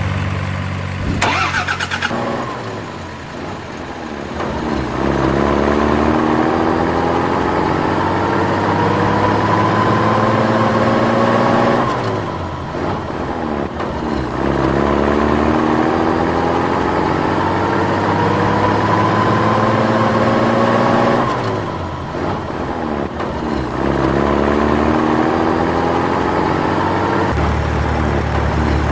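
Vehicle engine revving up, its pitch rising steadily over several seconds three times in a row, over a steady low engine rumble; a short sharp burst of noise about a second in.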